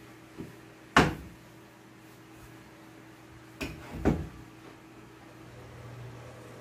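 Sharp knocks of things being handled and set down on a kitchen counter: a light one, a loud one about a second in, then a pair about four seconds in, over a steady low hum.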